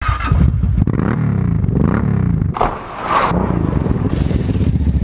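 ATV engine running and being revved, its pitch rising and falling several times, with a brief drop in level near the middle and a couple of short rushing noises over it.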